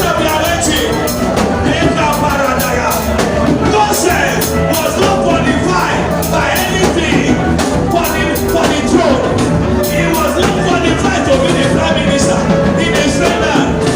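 Loud live church band music with a drum kit keeping a steady beat, with voices singing over it.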